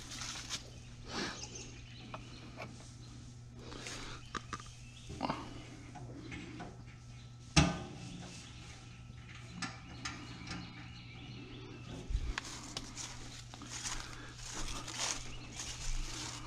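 Footsteps and rustling on grass and dry leaves with scattered knocks and handling noise, and one sharp knock about halfway through.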